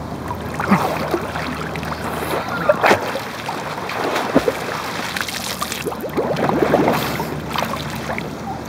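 Swimming-pool water sloshing and splashing right at the microphone, held at the water surface, with irregular small splashes and knocks throughout, busiest in the last few seconds.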